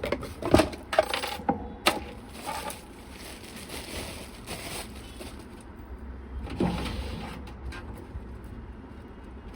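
Light metallic clinks and knocks from PC case parts being handled: several in the first two seconds, then one more knock about seven seconds in.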